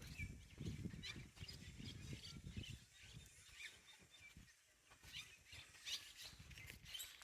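Faint outdoor ambience: scattered short bird calls over an uneven low rumble.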